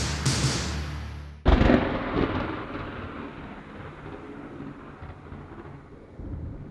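Thunder sound effect at the start of a performance soundtrack. A low hum and storm noise give way about a second and a half in to a sudden loud thunderclap, which rumbles away slowly.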